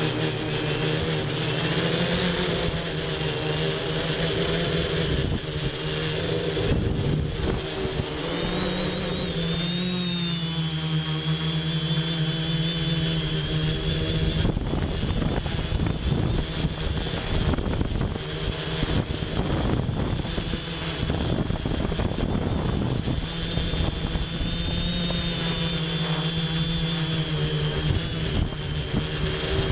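Electric quadcopter motors and propellers whining, heard from the onboard camera, the pitch shifting up and down with throttle. Gusty rushing noise over the microphone, heavier in the second half.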